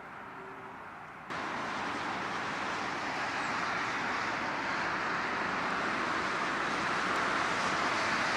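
A DB class 425 electric multiple unit approaching, its rolling noise rising slowly into a steady rush. The sound jumps up abruptly about a second in, as at an edit.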